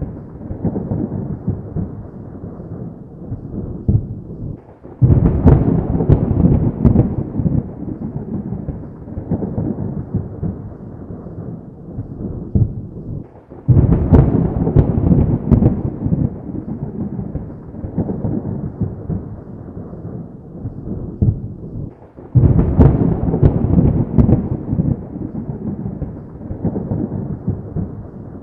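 Thunder: three loud cracking claps roughly every eight to nine seconds, each rolling on into a long, deep rumble that slowly dies away before the next.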